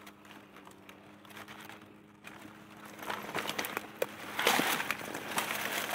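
Dry leaf litter and grass rustling and crackling under gloved hands digging in the forest floor, with small clicks and snaps. It starts about two seconds in and grows louder. Before it, a faint steady hum.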